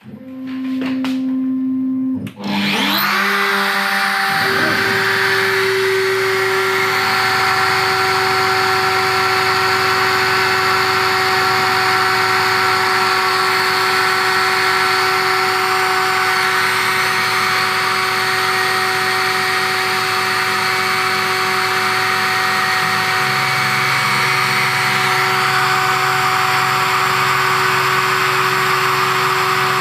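CNC router spindle starting and running steadily at speed, a high whine with several held tones. It starts sharply, dips briefly after about two seconds, then climbs in pitch for a couple of seconds before settling. The spindle is spinning free during an air cut, the bit not touching the part.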